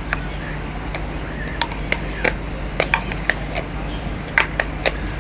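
A metal spoon scraping and tapping against a plastic quark tub and a metal mixing bowl while quark is scooped out: irregular sharp clicks and taps over a steady low hum.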